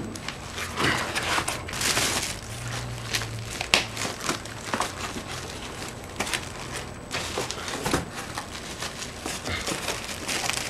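Box packaging rustling and crinkling with scattered light knocks and scrapes as a computer monitor is pulled out of its shipping box.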